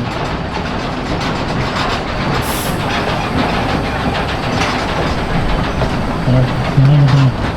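A narrow-gauge train rolling along, its cars clattering steadily over the rail joints. A brief hiss comes about two and a half seconds in.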